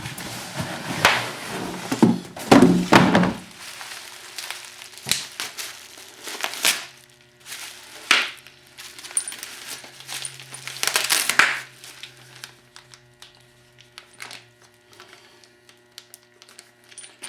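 Handling noise from the heavy vise and its parts being moved about on a workbench: a busy stretch of knocks and rubbing over the first few seconds, then a few separate thunks and clunks.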